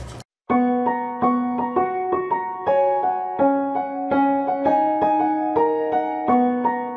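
Background piano music: a gentle melody of single struck notes over lower held notes, starting about half a second in after a brief gap.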